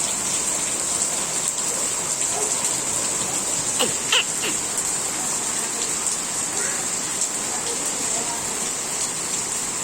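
Heavy rain falling and pattering steadily on surfaces, an even hiss.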